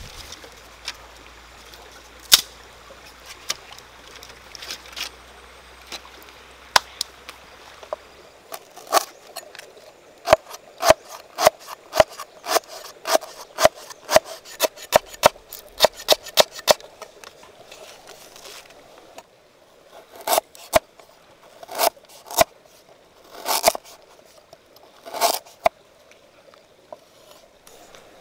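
A cleaver slicing lemongrass on a round wooden chopping block: a steady run of knocks about two a second, then a few separate groups of heavier chops near the end. A few scattered knocks of sticks being handled come first.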